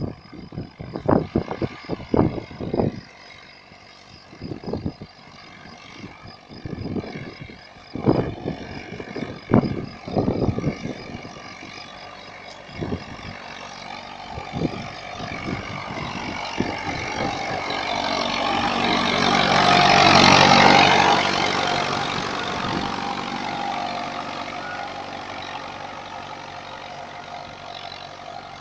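IMT 560 tractor's diesel engine pulling a plough, growing louder as it approaches and passes close about two-thirds of the way through, its pitch dropping as it goes by, then fading as it moves away. Irregular sharp thumps sound over the first ten seconds.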